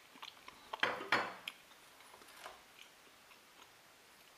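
A bowl and spoon clinking on a tray: small clicks, with a louder clatter about a second in as the bowl is set down, then a few faint ticks.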